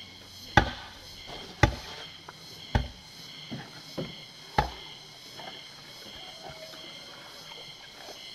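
A long-handled metal-bladed bar being driven down into mortar and concrete: a series of sharp chopping strikes about a second apart over the first five seconds, then they stop.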